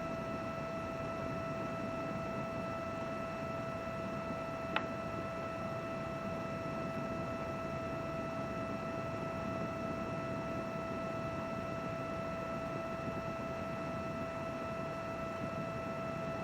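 A running computer: a steady fan whir with a steady high-pitched hum over it. One short click about five seconds in.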